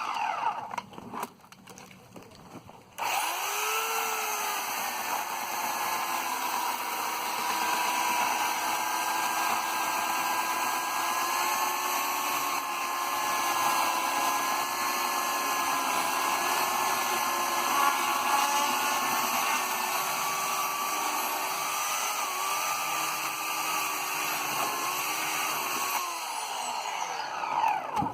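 Oregon CS1500 electric chainsaw's motor coasting to a stop, then starting up about three seconds in with a rising whine. It runs steadily for over twenty seconds and winds down again near the end.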